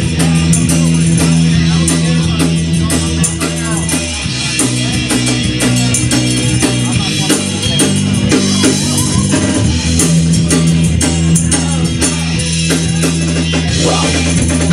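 Live punk-reggae band playing a song: drum kit, guitar and a steady low bass line that shifts to a new note about four seconds in and again about ten seconds in.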